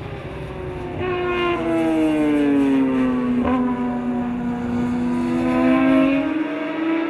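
A 600cc superstock race motorcycle's engine passing close. Its high, stacked engine note falls as the bike slows into a corner, holds low, then climbs again as it drives out. There is a brief click about halfway.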